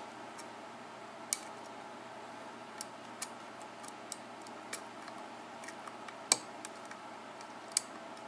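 A lock pick working the pin tumblers of a key-in-knob lock cylinder under light tension: scattered, irregular small metal clicks, the sharpest a little over a second in and again about six seconds in.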